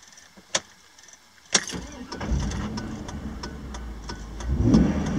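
A truck's engine being started, heard from inside the cab: a click of the key, then the engine catches about a second and a half in and settles into a steady run, swelling briefly near the end. The truck has been losing power and cutting out, a fault the owner cannot pin down.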